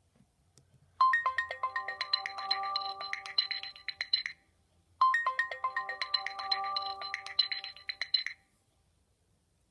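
A Nokia C2-01 ringtone played through a Sony Ericsson W595 phone's loudspeaker: a short melody of about three seconds, heard twice with a brief gap between.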